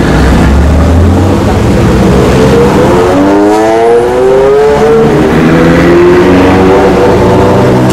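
McLaren supercar's twin-turbo V8 pulling away, doors raised: a deep rumble, then the engine note rises, dips and rises again as it accelerates.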